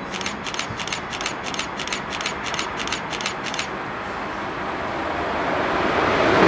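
A camera shutter firing in a rapid burst, about a dozen clicks at roughly three a second, followed by the rising rumble of an approaching passenger train, growing louder toward the end.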